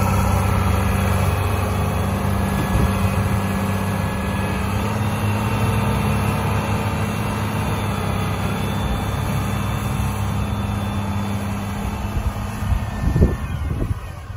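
New Holland 8340 tractor's six-cylinder turbocharged diesel running steadily as the tractor drives over loose soil with its rear implement. It grows fainter as it moves away, with a few low thumps near the end.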